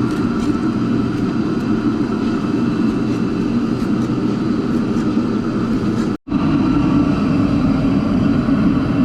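Steady, loud background din of a busy street market, broken by a sudden brief dropout about six seconds in.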